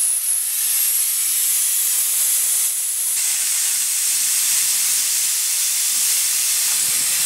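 Compressed air hissing steadily out of a school bus's auxiliary air brake tank through its cable-pulled drain valve. The tank is being emptied of pressure (and any water) after shutdown.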